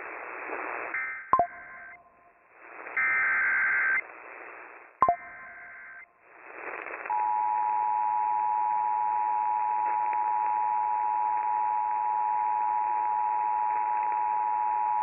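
Emergency Alert System tones over the radio: three short bursts of the warbling SAME data header in the first six seconds, with a sharp click in the first and third, then the steady two-tone EAS attention signal starting about seven seconds in, heralding a relayed severe thunderstorm warning.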